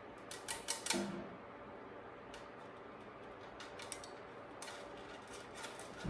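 Scattered light clicks and ticks of a cable being worked through a bicycle frame's internal routing, a small cluster in the first second and more from a little past the middle.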